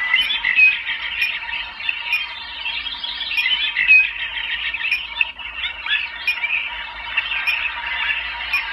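A recorded chorus of birds chirping: many short, overlapping chirps, played as a relaxation sound effect through the ocean-light projector's built-in speaker, with a faint steady tone underneath.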